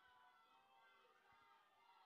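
Near silence, with faint, indistinct tones in the background.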